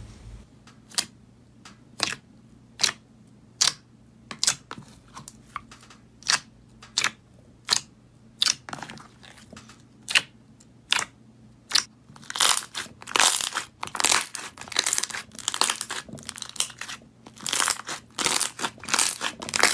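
Slime being poked and pressed by hand: a string of separate sharp pops, roughly one or two a second, gives way in the second half to denser crackling squelches as a hand presses soft, foamy slime.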